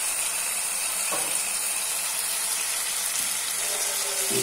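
Onion-tomato masala sizzling steadily in oil in a steel pot, a continuous hiss as it cooks down to the point where the oil separates, with a couple of faint taps.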